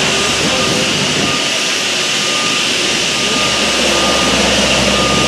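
Steady, loud construction-site noise from heavy machinery running, with a faint high beep repeating about once a second.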